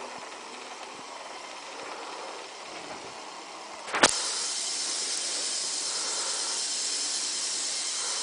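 Small LEGO NXT electric motors whirring. About four seconds in there is a sharp knock, then a steady, loud splashing hiss as the toy boat's drive churns the bathtub water.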